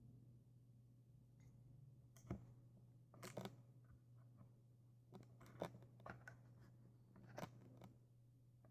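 Faint, scattered clicks and light taps of handled paper-and-cardboard rifle parts during disassembly, about seven in all, a few coming in quick pairs, over a steady low hum.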